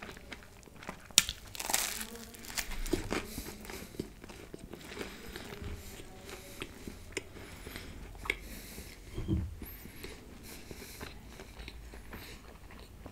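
Close-miked eating sounds: crisp bites and crunchy chewing of a toasted sandwich, with a sharp crunch about a second in and scattered crackles and mouth clicks after it.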